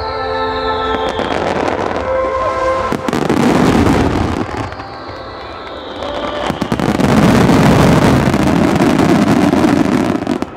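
Fireworks display finale: a dense barrage of shell bursts and crackling, growing loudest from about seven seconds in and dropping off sharply just before the end.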